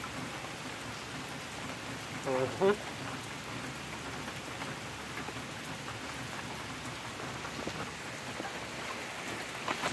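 Steady rain falling, an even hiss with no break. About two and a half seconds in there is a brief low vocal sound from a man.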